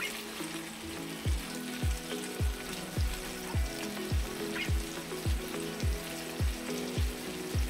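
Beef tteok-galbi patties sizzling steadily in oil in a nonstick frying pan over low heat. Under it runs background music with a low thumping beat, a little under two beats a second, starting about a second in.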